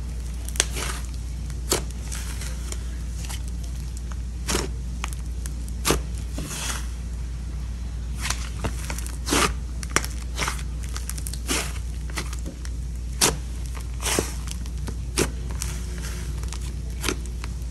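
Slime being squished and poked by hand, giving irregular sticky pops and crackles, several of them sharper and louder, over a steady low hum.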